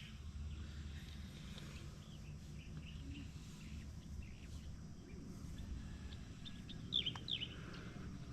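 Outdoor ambience: birds chirping with short, sharp calls, the loudest pair about seven seconds in, over a steady low rumble.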